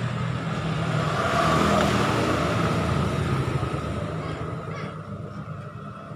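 Traffic noise from a passing road vehicle, swelling to a peak about two seconds in and then slowly fading, over a low steady engine hum.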